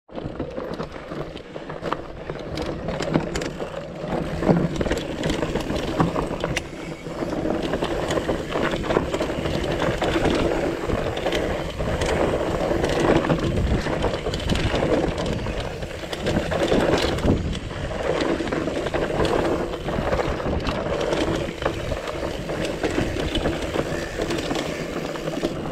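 Mountain bike ridden over rocky singletrack: tyres crunching over rock and dirt, and the bike rattling with frequent knocks.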